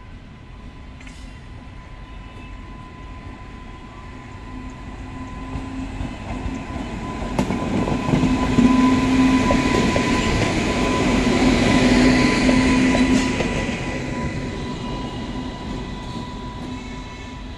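An Indian Railways electric locomotive running light on its own as it passes. Its wheels rumble and click over the rails and a steady electrical hum runs underneath. The sound builds as it approaches, is loudest for several seconds while it passes close by about halfway through, then fades as it moves away.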